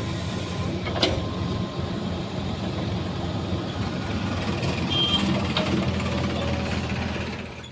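Heavy diesel machinery running steadily, with a sharp knock about a second in and a brief high beep near five seconds.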